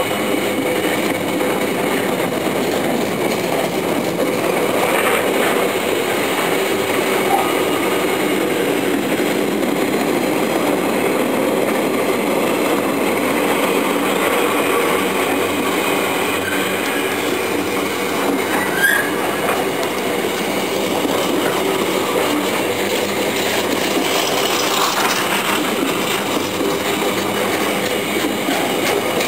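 Container flat wagons of a freight train rolling past at speed, a steady loud noise of steel wheels running on the rails.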